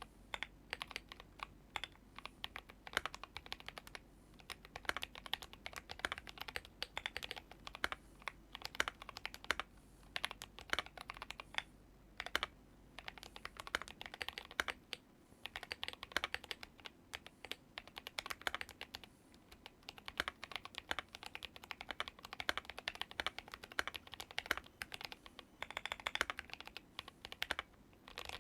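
Typing on a GMMK Pro mechanical keyboard fitted with Holy Tom switches and SA-profile ABS doubleshot keycaps: a fast, uneven stream of key clacks with a few brief pauses.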